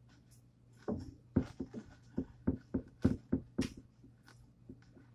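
Chewing a mouthful of raw garden salad: about ten crisp, irregular crunches over some three seconds, then a sharp click at the very end.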